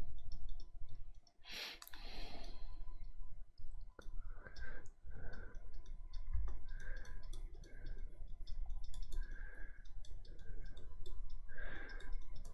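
Many small clicks of a computer mouse button in quick runs, as brush strokes are made.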